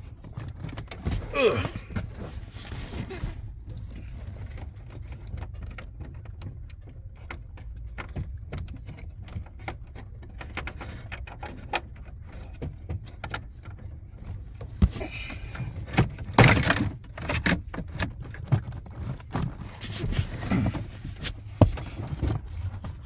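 Handling noise inside a car's dash area: scattered clicks, knocks and rattles of plastic trim and cables being pulled and worked, busier about two thirds of the way through, over a low steady hum.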